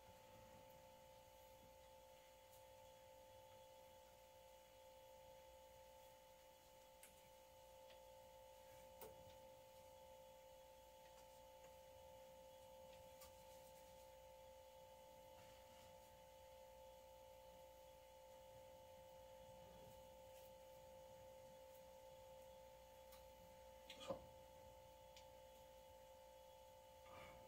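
Near silence with a faint, steady hum of several tones. A few soft clicks come as tofu pieces are set into the frying pan with chopsticks, the sharpest about three-quarters of the way through.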